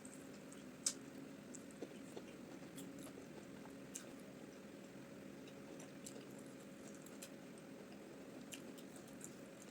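Faint close-up eating sounds of omotuo rice balls and peanut soup: soft wet chewing and mouth clicks, with one sharper click about a second in.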